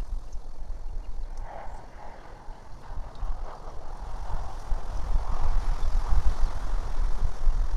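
Wind rumbling on an outdoor nest-camera microphone: a rough, uneven low rumble under a rushing hiss that builds toward the end.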